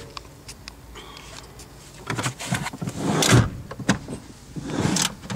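Rustling and scraping of someone shifting about in a car seat and handling the camera, with a few soft knocks; the loudest scrape is about three seconds in.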